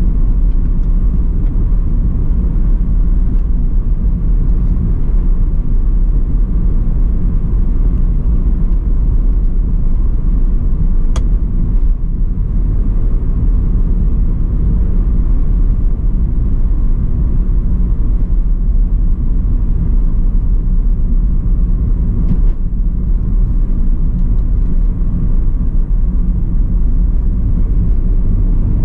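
Steady low rumble of road and engine noise heard from inside a moving car. A single sharp click sounds about eleven seconds in.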